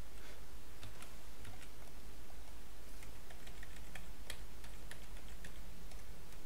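Computer keyboard keys clicking in a quick, uneven run of presses as a shortcut is hit over and over: Alt+A, then Ctrl+Z for undo many times.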